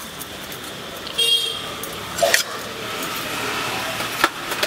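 Road traffic running steadily, with a short vehicle horn toot about a second in and a few light clicks.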